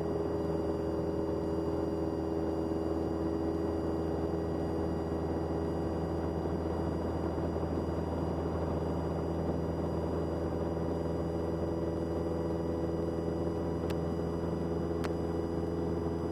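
Cessna 172's piston engine and propeller droning steadily in flight, heard in the cockpit. Two faint clicks come near the end.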